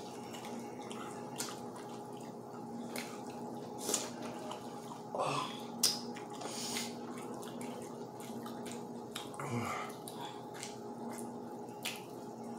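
Fried chicken being eaten by hand: wet mouth smacks and scattered chewing clicks, with a couple of short murmurs, over a steady low hum.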